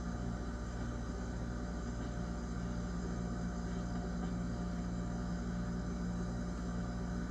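Steady low hum of a refrigerator running, picked up from inside the closed fridge, with no change throughout.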